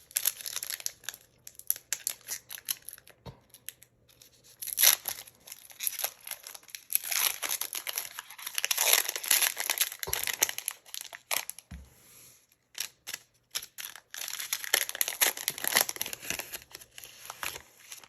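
A Pokémon card booster pack's foil wrapper being torn open and crinkled, in several bursts of crackling with short pauses between.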